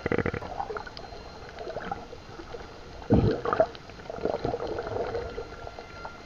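Sea water heard through a submerged camera: muffled gurgling and bubbling, with a louder deep surge about three seconds in.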